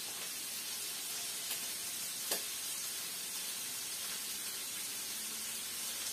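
Pork ribs sizzling in oil in a frying pan: a steady, even hiss, with a single sharp click a little over two seconds in.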